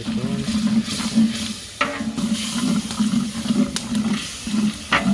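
Wet chicken masala in a cooking pot being stirred, the liquid sloshing and sizzling in strokes about twice a second, with two sharp knocks against the pot, one about two seconds in and one near the end.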